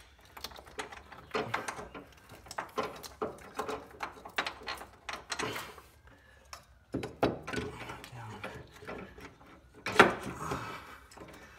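Irregular metal clinks, clicks and knocks as a new front lower control arm is fitted into a Porsche 911 (996) front suspension and its bolt set loosely, with one sharp knock about ten seconds in.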